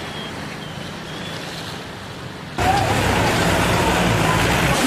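Street noise on a rain-flooded road: vehicles and rushing water, a steady hiss and rumble that jumps abruptly louder about two and a half seconds in.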